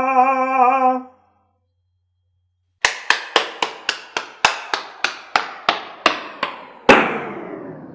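A held sung note with vibrato ends about a second in. After a pause, a run of about fifteen sharp knocks starts, each ringing briefly, and the knocks slow down as they go. They end about seven seconds in with a louder hit that rings on and slowly fades.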